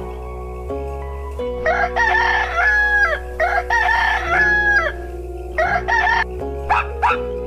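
Rooster crowing twice, each crow about a second and a half long, followed by a few shorter calls.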